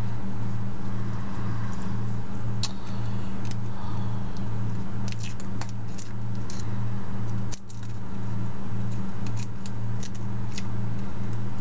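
Garlic cloves being peeled by hand, their dry papery skins crackling and clicking, over a steady low hum. There is one sharper knock about two-thirds of the way through.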